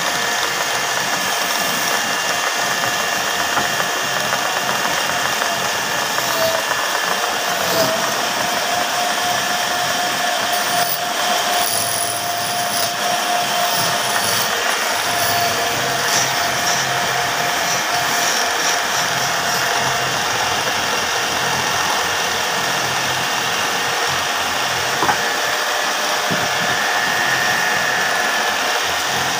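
Wood lathe running steadily while it spins a lacquered wooden cot leg, giving a constant mechanical running noise with a held hum through the middle. A hand tool is pressed against the turning wood.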